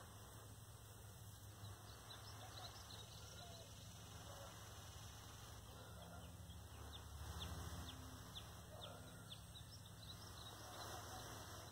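Faint, intermittent breaths blown into a smouldering tinder bundle to coax it into flame, coming in soft pushes every couple of seconds. Many short, high bird chirps sound throughout.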